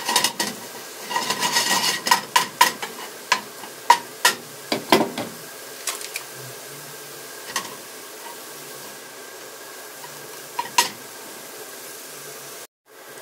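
Wooden spatula scraping and knocking against a frying pan as sliced onions are stirred over low heat, with a faint sizzle underneath. The stirring stops about five seconds in, leaving the quiet sizzle and a few stray taps.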